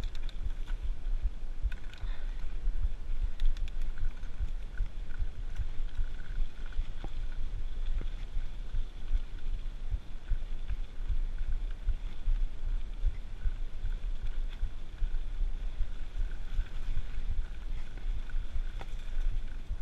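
Mountain bike rolling over a dirt trail: a steady low rumble from the tyres and bike, with frequent small knocks and rattles as it rides over bumps.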